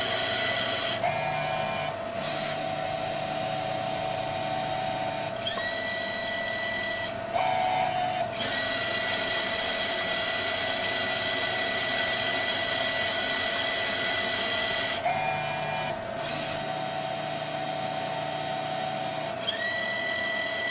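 TEAC P55 heat-transfer disc printer running through a print cycle: a steady motor hum with a higher whine that glides up and holds for several seconds. The whine comes in about five seconds in, again around eight seconds, and near the end.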